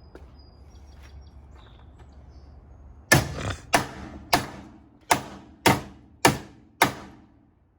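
Seven sharp hammer blows on a car body panel, a little under two a second, each ringing briefly: the panel is being knocked back into alignment.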